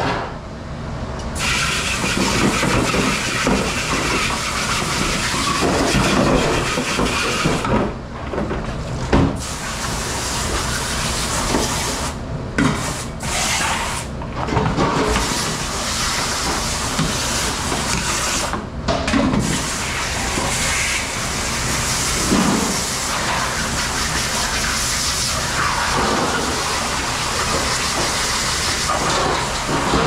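Commercial pre-rinse spray nozzle jetting water onto plastic kitchenware in a steel sink: a loud, steady hiss that starts about a second in and stops briefly several times as the trigger is released. A steady machine hum runs underneath.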